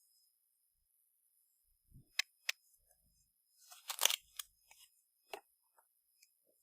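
Toy packaging and parts being handled in an unboxing: a few sharp clicks and taps, with a brief crinkling rustle of packaging about four seconds in.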